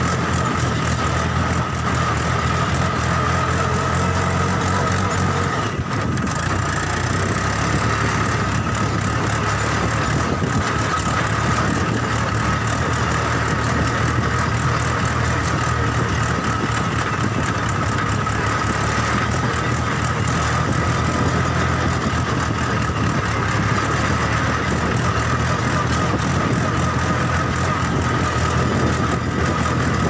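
Remote-control toy construction vehicle running: a steady motor whine over a low, engine-like drone, unbroken apart from a brief dip about six seconds in.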